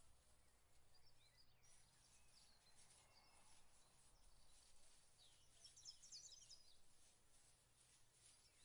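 Near silence: faint outdoor background with distant small birds chirping, a quick cluster of high chirps about six seconds in.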